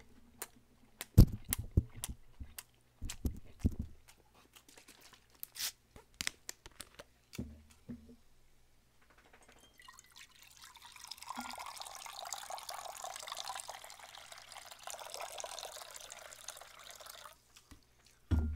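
Wet, clicky chewing of a fried seaweed roll close to the microphone. About ten seconds in, corn makgeolli pours in a steady stream into a stainless steel bowl for about seven seconds.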